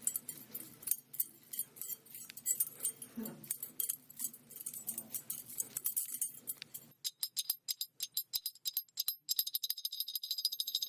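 Small metal pieces jingling and clinking in rapid irregular shakes. The clinks thin out for a couple of seconds, then about nine seconds in become a continuous bright, ringing jingle.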